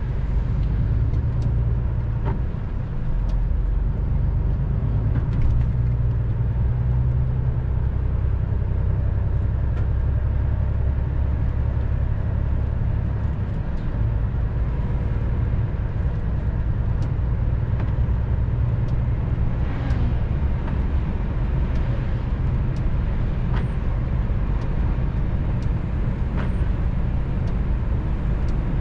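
Steady low engine drone and road noise inside the cab of a heavy vehicle on the move, with scattered small clicks and rattles. The deepest part of the drone shifts a little past halfway through.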